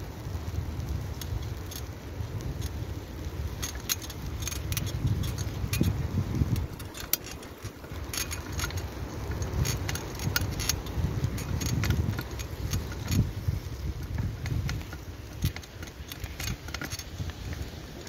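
Mountain bike rolling over fresh snow: its chain and parts rattle with frequent sharp metallic clicks, over a steady low rumble of the ride.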